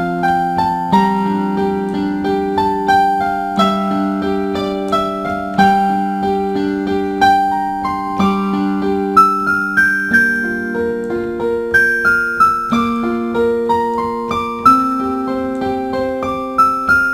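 Background music: electric piano playing a slow, gentle melody of struck notes over held chords.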